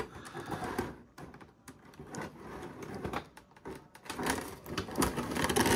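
Tape being picked at and peeled off plastic packaging, with irregular scratching, crinkling and small clicks of the packaging being handled. It gets busier and louder over the last couple of seconds.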